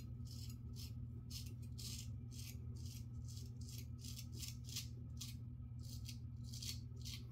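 Vintage Giraffe straight razor scraping through lathered stubble on the neck in short chopping strokes, about two to three a second, each a brief high scrape.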